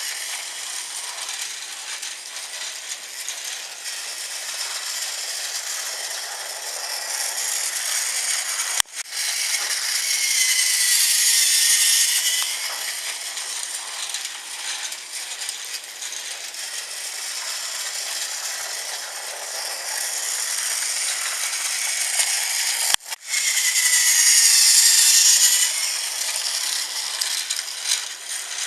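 Battery-powered Thomas TrackMaster toy train running on plastic track: its small motor and gears whir with a steady clattering rattle. The sound swells louder twice, about ten and twenty-four seconds in, each time with a whine that rises and falls.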